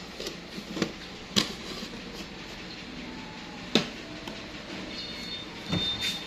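A handful of sharp, light knocks and clicks of things being handled on a plate, scattered over faint steady room noise, the sharpest about a second and a half in and just before four seconds.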